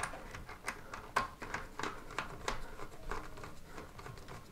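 Ratcheting screwdriver clicking in short, irregular strokes, about three a second, as it turns a toilet seat hinge bolt down into its wing nut.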